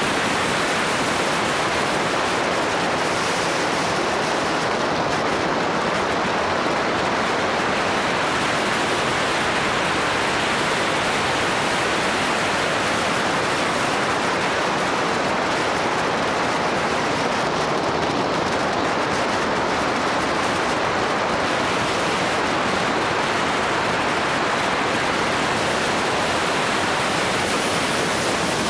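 Steady wind rush over the microphone of a motorbike-mounted camera at riding speed: an even hiss with no engine note standing out.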